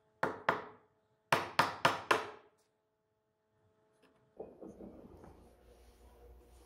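A hammer striking a chisel to chop dovetail waste out of a wooden board. Two sharp blows, then a quick run of four about a second later. Soft rubbing and handling noise follows near the end.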